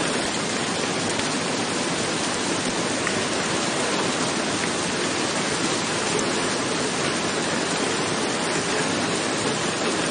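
Rain falling steadily on a roof: a dense, even hiss with no breaks.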